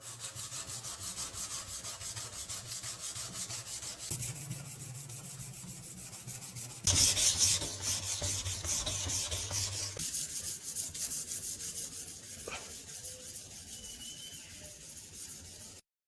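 Hand abrasive work on the restored sledgehammer: rapid back-and-forth rubbing strokes, about three a second, getting louder from about seven seconds in.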